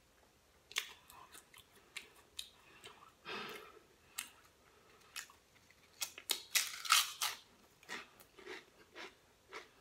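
A mouthful of Pringles potato crisps being chewed, with irregular crunches and clicks and a denser run of crunching about six to seven seconds in.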